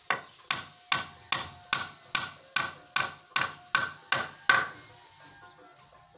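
Hammer striking a plywood sofa frame: a steady run of about a dozen sharp blows, roughly two and a half a second, each with a brief ring, stopping a little after four and a half seconds in.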